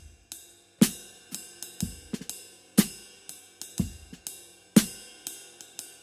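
Drum kit played in a slow, steady groove: a heavier stroke about once a second, a deep low hit and a brighter one in turn, with lighter strokes between. The kit is a Ludwig Vistalite-style kick with baffling inside, 1970s Gretsch toms, a Ludwig Acrolite snare damped with a cloth, and K Zildjian hi-hats.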